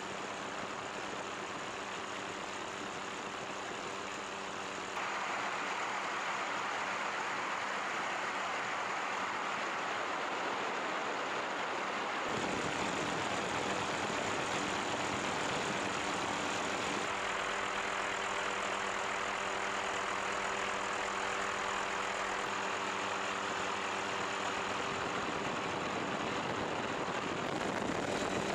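Helicopter noise: a steady drone of engine and rotor with a thin high whine. It changes abruptly about five and twelve seconds in.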